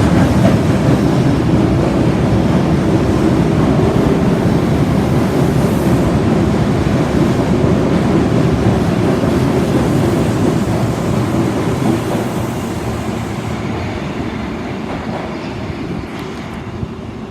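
Osaka Metro 22 series subway train running through an underground station, with a steady rumble and wheels clattering on the rails. The noise fades gradually over the last few seconds as the train draws away.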